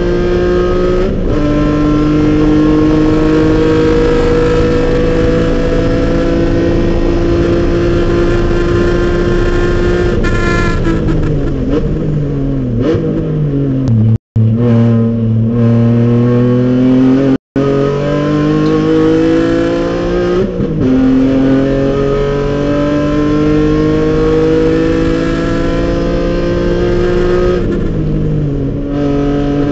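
BMW race car's engine heard from inside the cabin at racing speed, pulling hard near 7,000 rpm with gear changes that make the pitch step up and down. Midway the engine note falls steadily as the car brakes and downshifts for a corner, then climbs again through an upshift; the sound cuts out for a split second twice around the middle.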